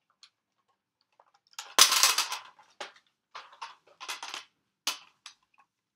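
Hard plastic Nerf gear clattering as it is handled and rummaged through: a sharp knock about two seconds in runs into a rattling clatter, followed by several shorter clatters and rustles.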